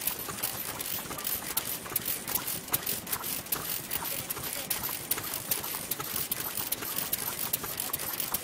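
Vintage Noda stationary kerosene engine running, its valve gear and ignition mechanism clattering in a fast, uneven run of sharp clicks and clacks, with other old engines ticking alongside.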